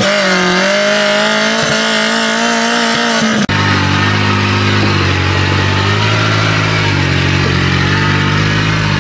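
Competition 4x4 trial off-road vehicle engines revving hard under load. A high engine note is held fairly steady, then after a cut about three and a half seconds in a deeper engine note rises and falls as the throttle is worked.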